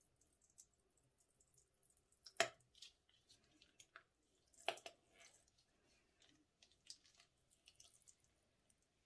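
Silver metallic slime squeezed out of a plastic piping bag into a glass bowl: faint crackling of the bag and the slime, with two sharper clicks about two and a half and about five seconds in.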